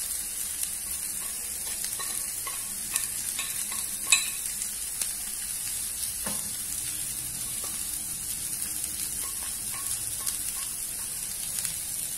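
Broccoli and carrots sizzling in oil in a frying pan with a steady hiss, stirred with a spatula that scrapes and taps the pan now and then, with one sharper knock about four seconds in.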